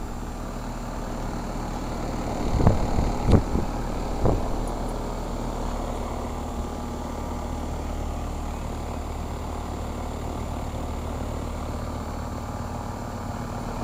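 2007 Carrier central air-conditioning condensing units running under a high heat load: steady compressor hum and outdoor fan whoosh. A few brief knocks stand out between about two and four and a half seconds in.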